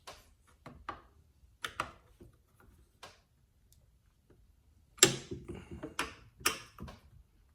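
Clicks and knocks of small parts and tools being handled on a chainsaw: scattered light clicks, then a louder cluster of knocks and clatter about five seconds in.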